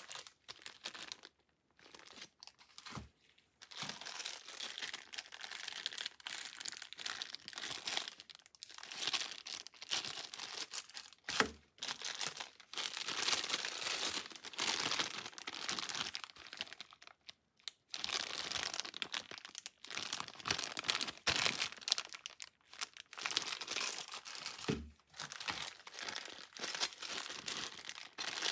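Clear plastic zip bags crinkling and rustling as gloved hands take them out and open them, in long stretches with short pauses. There are three brief soft knocks along the way.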